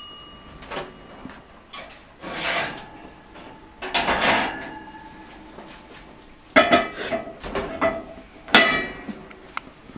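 Kitchen oven door opened and a ceramic baking dish slid off the oven rack and set down on a gas range's cast-iron grates: a series of scrapes, clatters and clinks, the sharpest two in the second half.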